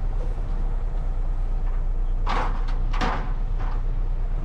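Concrete mixer truck's diesel engine running steadily, heard from inside the cab as a low hum. Two short, louder noises cut in about two and three seconds in.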